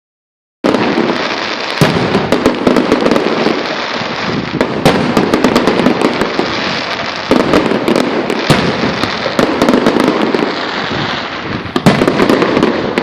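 Fireworks going off in a dense, rapid barrage of bangs and crackles that starts about half a second in and keeps up without a break.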